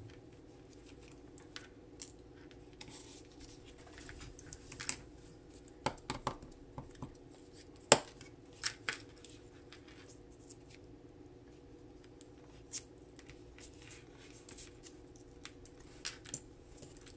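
Hands and tweezers handling small paper circles on a cutting mat: scattered light clicks, taps and paper rustles, with a sharp tap about eight seconds in, over a faint steady hum.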